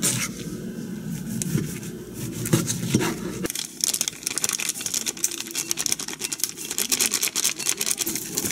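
A serrated knife sawing through a crusty loaf of bread on a plastic cutting board. After about three and a half seconds it gives way to a plastic bag crinkling steadily as roasted soybean flour (kinako) is shaken out of it into a bowl.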